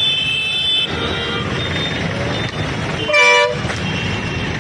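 Vehicle horns honking in stalled street traffic over a steady rumble of idling engines: one horn held through the first second, then a short loud horn blast about three seconds in.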